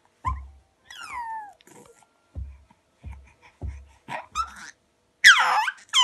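Baby squealing: several short, high-pitched squeaks that fall in pitch, the loudest near the end, with a few low bumps in between.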